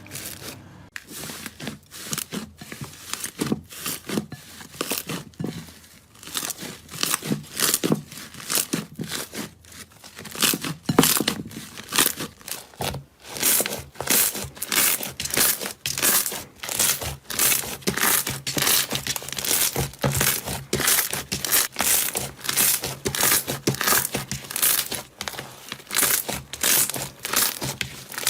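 Slime squeezed and pressed by hand, making repeated crackling, sticky squishes a few times a second, more regular and louder after about ten seconds.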